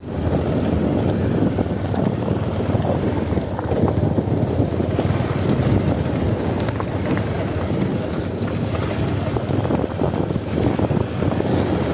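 Wind buffeting the microphone: a steady, rough rumble with no clear tone.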